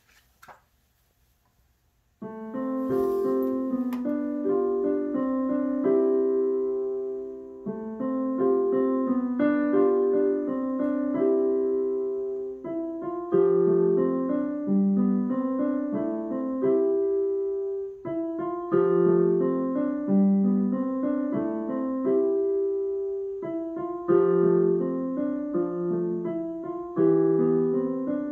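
Digital piano with a piano voice playing a student piece in the middle register. It starts about two seconds in and goes in phrases of roughly five seconds, each opening with a louder note and fading before a short break.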